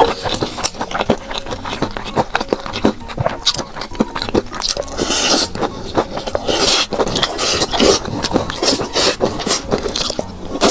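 Close-miked eating sounds: chewing and mouth noises, with many quick sharp clicks and short noisy bursts.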